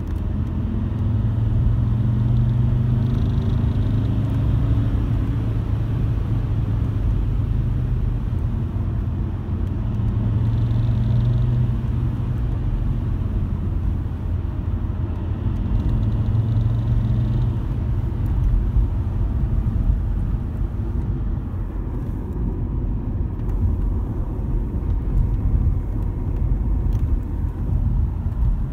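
Car on the move with a steady low rumble. Three times, each for two to three seconds, a louder low drone swells in: a vibration noise that comes on when the car accelerates.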